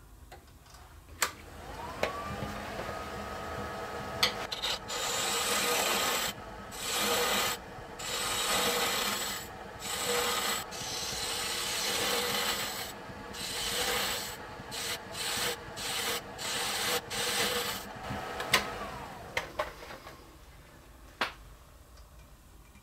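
Wood lathe started up and spinning a small wooden toy-wheel hub on a pen mandrel with a steady whine, while a turning tool cuts into the wood in repeated short bouts of scraping shaving noise as the hub is tapered. Near the end the lathe is switched off and its whine falls away as it winds down.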